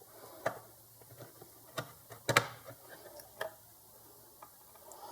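Scattered plastic clicks and knocks of wire connectors being handled and plugged onto a gate opener control board, the loudest a double click a little over two seconds in.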